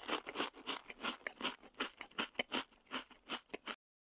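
Crunchy chewing: crisp food being chewed with open, crackling bites, about four crunches a second, stopping shortly before the end.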